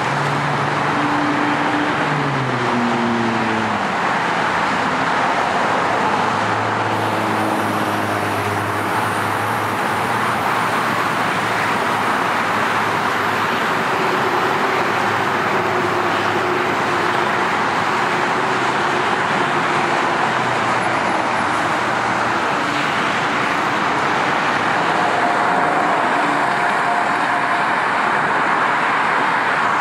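Steady noise of heavy freeway traffic, with the engine notes of passing vehicles now and then gliding down in pitch.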